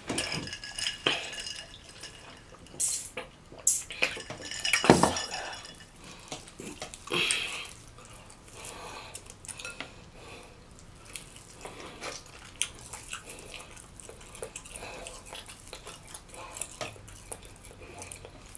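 Several sharp clinks and knocks of glass and tableware in the first five seconds or so, some ringing briefly, then quieter wet sounds of fingers picking food from a bowl of cheese sauce and eating.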